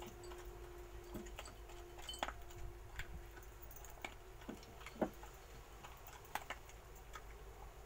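Small terrier eating dry kibble from a small dish: irregular crunches and clicks of teeth and kibble against the dish, a few each second, the loudest about five seconds in.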